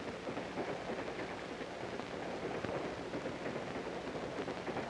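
Steady crackle and hiss of an old 16mm optical film soundtrack, with a faint low hum underneath.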